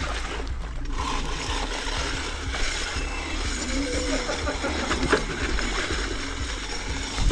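Electric scooter tyres rolling slowly through water and mud, a steady splashing wash over a low wind rumble on the microphone.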